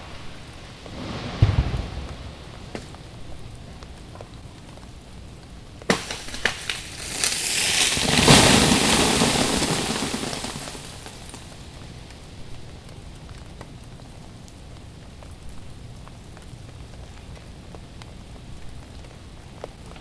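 Ice-coated tree branches cracking and crashing down: a short crash with a dull thud about a second and a half in, then sharp cracks about six seconds in leading into a long crash of a limb falling through icy branches, loudest around eight seconds and dying away by about eleven. Freezing rain patters steadily throughout.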